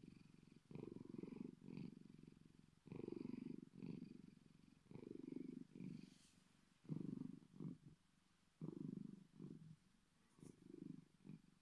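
Bengal cat purring deeply and quietly, in swells that come in pairs, a new pair about every two seconds, with short pauses between.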